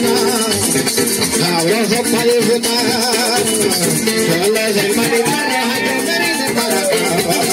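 Live dance music from an electronic keyboard played through a loudspeaker: a plucked-string melody over a shaken rattle rhythm, playing steadily throughout.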